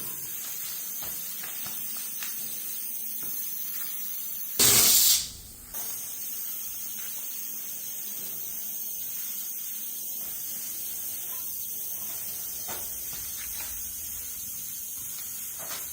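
Steady hiss with faint scraping strokes of a plastic float over fresh facade render. About four and a half seconds in, a sudden loud rush of noise lasts about half a second, then cuts off.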